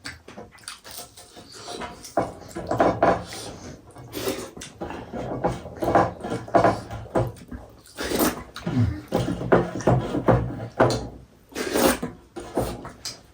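Eating sounds from a goat-meat soup meal, close to the microphone: repeated short, irregular slurps and chewing noises.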